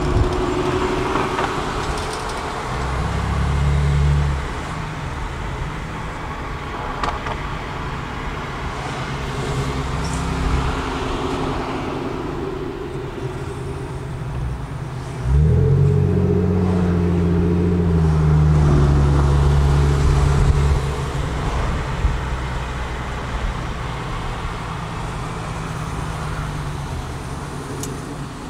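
Infiniti G35's 3.5-litre V6 heard from inside the cabin while driving: a short pull with the revs rising a few seconds in, then about halfway through a sudden, louder acceleration with the revs climbing for several seconds before easing off. Steady road and traffic noise underneath.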